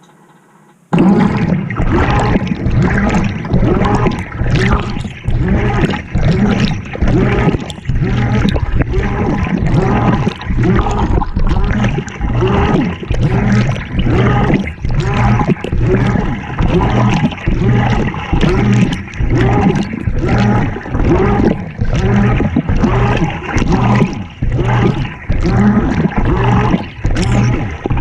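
Water and laundry sloshing in a GE top-loading washer's tub as the agitator starts up about a second in and churns the load back and forth in a steady rhythm, heard from inside the tub among the clothes.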